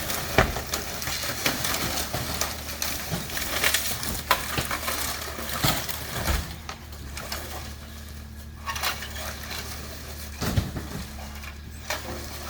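Demolition of a house: wood and debris cracking and crunching, with repeated sharp snaps and knocks over a steady low hum.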